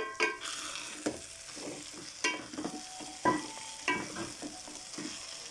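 Minced meat, bitter gourd and peas sizzling in oil in a metal pot while a spoon stirs them. The spoon knocks against the pot every second or so, several strikes leaving a short metallic ring.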